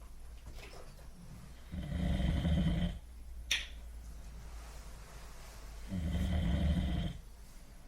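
A person snoring: two long snores, each about a second, roughly four seconds apart, with one short sharp click between them.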